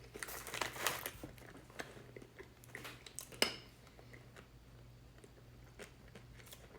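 Sunflower seeds being cracked between the teeth and chewed: a cluster of crisp cracks in the first second, scattered clicks after, and one sharp crack about three and a half seconds in, then it goes quiet.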